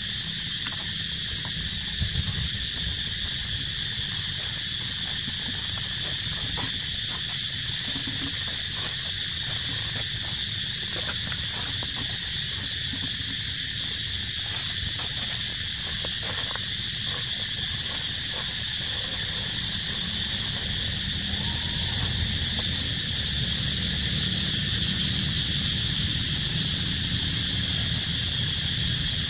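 Steady, high-pitched outdoor insect chorus that drones without a break, over a low steady rumble.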